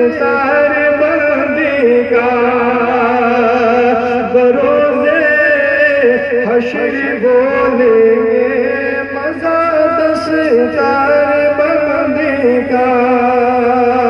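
A man singing a religious Urdu poem (kalam) into a microphone, in long drawn-out melodic lines with wavering held notes.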